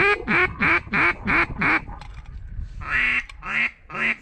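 Mallard duck call blown by a hunter: a loud descending run of about seven quacks, each lower than the last, then a pause and three more raspy quacks near the end, the hen-mallard calling used to bring ducks in to decoys.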